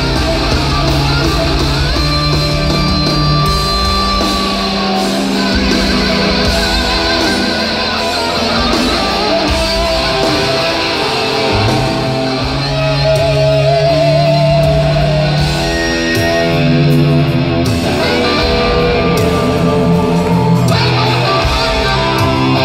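Live hard rock band playing an instrumental passage: electric guitars playing sustained lead lines with vibrato over bass and drums, heard through a phone recording from the arena audience.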